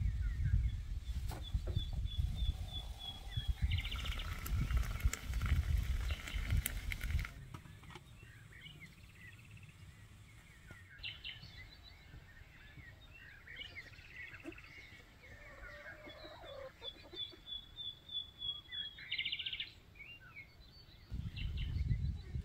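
Songbirds chirping and calling. One song, a quick run of high notes ending in a buzzy flourish, comes twice. A low rumble fills the first several seconds and comes back near the end.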